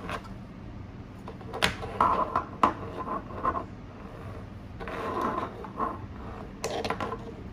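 Hands handling a small electronic device and its packaging: a few sharp clicks and knocks with two stretches of rustling and scraping over a low steady hum.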